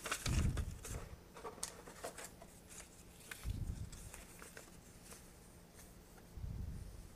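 Paper instruction leaflets rustling and crinkling as they are folded and unfolded by hand, with three soft low thumps from handling: about a second in, near the middle and near the end.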